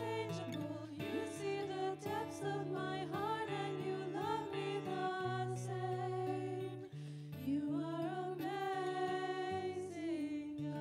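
Live worship band: women's voices singing a melody over strummed acoustic guitars and piano. The singing breaks briefly about seven seconds in, then picks up again.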